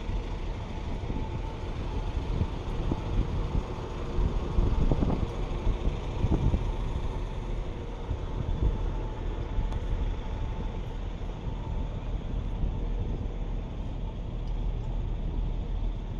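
Diesel multiple unit standing at the platform with its engine idling: a steady low rumble with a faint held tone above it, and uneven low gusts over it.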